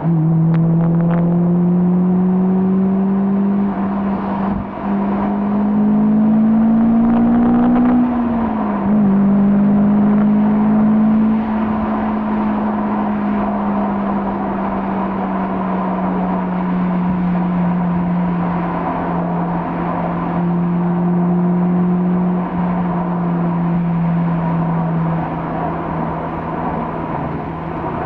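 Car engine running on the move, rising in pitch under acceleration for several seconds, then dropping at a gear change about eight seconds in and slowly easing off, over wind and tyre noise.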